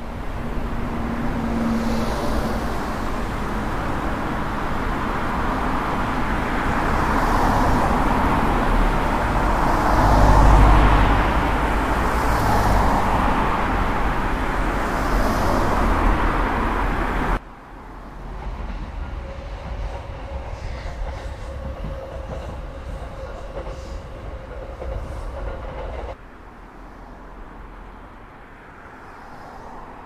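City transport noise: a steady rush of passing vehicles that swells to a deep rumble about ten seconds in. At about 17 seconds it cuts abruptly to a quieter street ambience with a faint steady hum, and drops again to a softer background a few seconds before the end.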